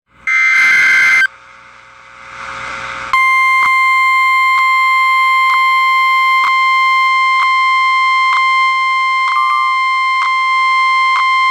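Emergency Alert System signals: a one-second warbling SAME data burst, then about two seconds of rising static hiss, then the National Weather Service 1050 Hz warning alert tone, a single steady high tone held for about eight seconds with faint clicks about once a second.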